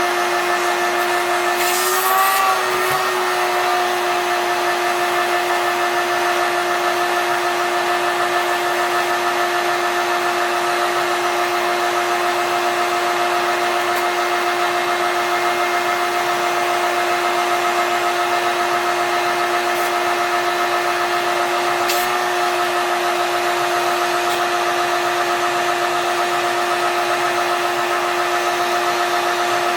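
Shop vac motor running with a steady whine, the pitch wavering briefly about two seconds in; a short click near the 22-second mark.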